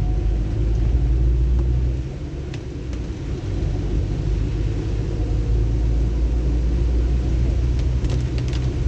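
Steady low rumble inside a moving car on a rain-soaked road: engine and tyre noise on the wet tarmac. It eases for about a second a couple of seconds in, then settles back.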